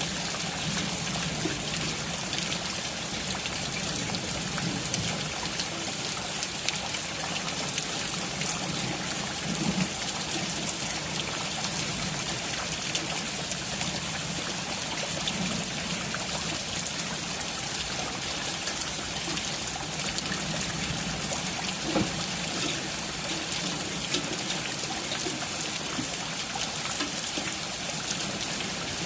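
Steady rain with water trickling and running, a constant even wash of sound.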